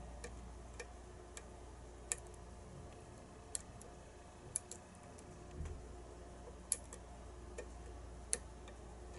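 Faint, irregular metallic clicks of a hook pick working the pins inside a pin-tumbler challenge lock, about a dozen spread over several seconds.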